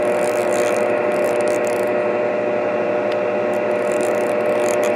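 Xiegu G90 HF transceiver on upper sideband giving out steady band-noise hiss through its speaker, with a few faint steady tones under it, as it is tuned across an empty stretch of the 10 m band.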